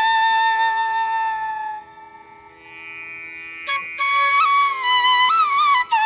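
Background music: a flute melody over a steady drone, holding one long note, dropping away briefly about two seconds in, then returning with a phrase of bending, sliding notes.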